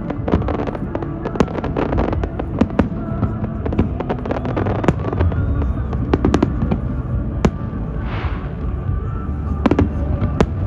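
Aerial fireworks going off in quick succession: many sharp bangs and crackles over a steady low rumble, with a short fizzing burst about eight seconds in. Music plays underneath.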